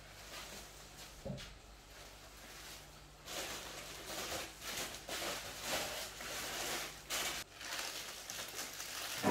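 Plastic bags and food packaging rustling and crinkling as snacks are picked up and handled, with a few light clicks. The rustling grows louder about three seconds in.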